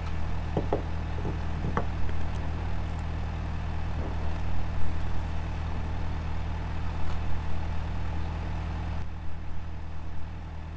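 An engine idling steadily, a low even hum that drops away abruptly near the end. A few light knocks come over it as a magnet on a rope is handled at the canal edge.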